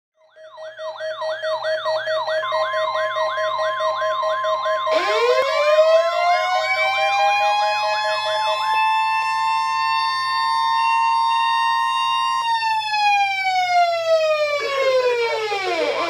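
Sirens layered together: a siren warbling quickly, about two to three cycles a second, over steady tones, then about five seconds in a second siren winds up from a low pitch, holds a high wail, and winds down near the end.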